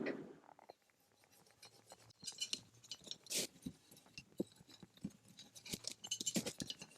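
A brush scrubbing dirt off the body of a vintage Craftsman hand plane: faint, irregular scratchy strokes with small clicks, starting about two seconds in.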